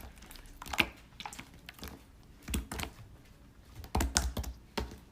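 A few scattered sharp clicks and taps, with a small cluster of them near the end.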